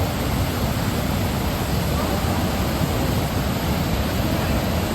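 Fukiware Falls: a steady, unbroken rush of falling water, deepest in the low end.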